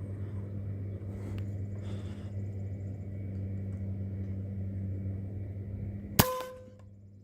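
A single shot from a .22 PCP air rifle about six seconds in: a sharp crack followed by a brief metallic ring. A steady low hum runs underneath.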